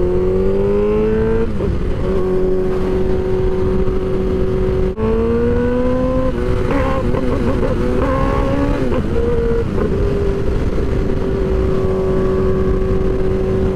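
2006 Suzuki GSX-R1000 inline-four engine under way: the note rises in the first second and a half, then holds steady. About five seconds in it breaks briefly at a gear change and climbs again, then settles to a steady cruise, over a rush of wind.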